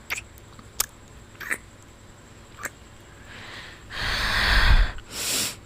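A woman's heavy breathing close to the microphone, a few short mouth clicks first, then deep breaths from about three seconds in. The loudest breath, about four seconds in, rumbles on the microphone.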